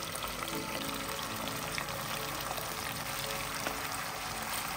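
Potato slices sizzling steadily in hot oil in a pot while cooked fried rice is poured in on top of them from a pan.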